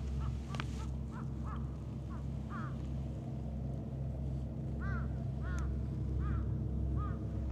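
Birds calling over and over, short rising-and-falling calls about every half second to a second, over a steady low hum.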